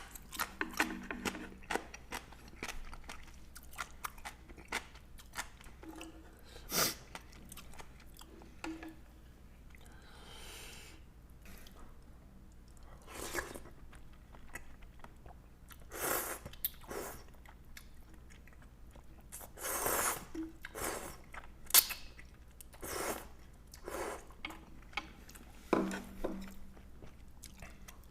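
Close-up mukbang eating sounds: a person chewing a meal of ramen with dumplings, with wet mouth clicks and several louder crunchy or slurping bites scattered through.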